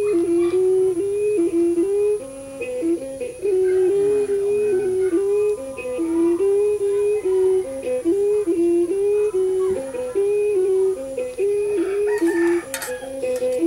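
Music: a single melody line moving in short held notes, with a few clinks near the end.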